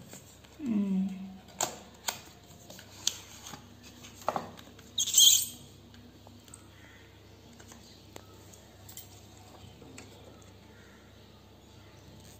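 Hands handling a plastic blush-and-highlighter palette and its packaging: scattered clicks and taps of hard plastic, with a brief sharp rustle about five seconds in, then quieter fiddling as the palette is opened.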